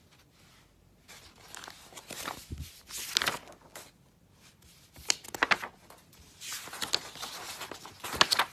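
Sheets of paper rustling and crinkling as they are handled and shifted on a desk, in irregular bursts from about a second in, loudest just before the end.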